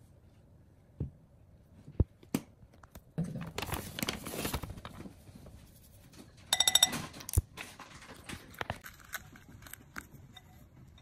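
Plastic measuring spoon and squeeze bottle handled over a glass mixing bowl: scattered clicks and knocks, a noisy stretch a few seconds in, and a short, loud squeak about two-thirds of the way through.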